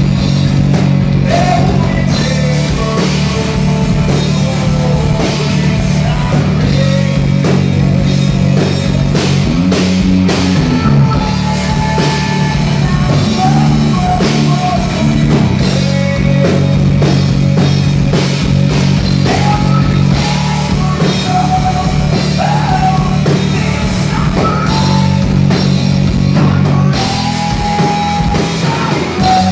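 Live rock band playing loudly: electric guitars, bass guitar and drum kit, with a man singing lead vocals over them.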